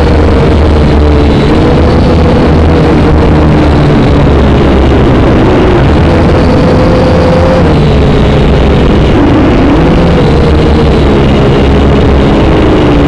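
Syma X5C quadcopter's four small brushed motors and propellers buzzing in flight, heard right at the drone's onboard camera. The loud, steady buzz wavers up and down in pitch as the motor speeds change, over a heavy low rumble.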